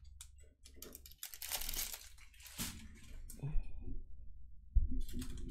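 Small plastic bags of diamond painting resin drills crinkling and rustling in irregular bursts as they are handled and laid down, with a sharp thump near the end.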